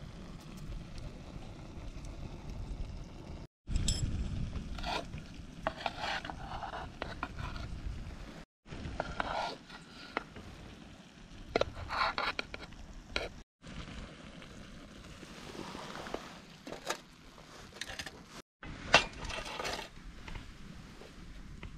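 Chopsticks scraping and clinking against an aluminium mess tin (mestin) as cooked rice and its browned crust are scooped from the bottom, in several short spells over a low steady rumble.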